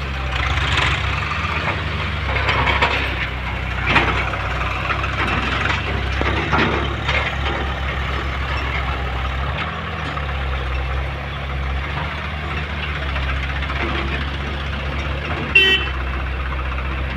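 Heavy diesel engine running steadily with a low drone, with a few knocks and clanks over it.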